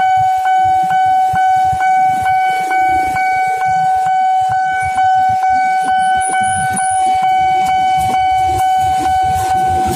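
Railway level-crossing warning bell ringing, a steady tone struck about twice a second, over idling motorcycle engines. A KRL electric commuter train begins passing the crossing in the second half.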